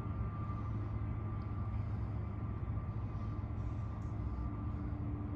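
Steady hum of airport gate machinery: a low rumble with a faint, unchanging high whine.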